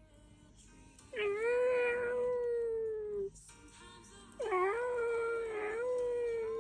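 Two long, drawn-out meows, each about two seconds, scooping up at the start and then held on one pitch, over faint background music.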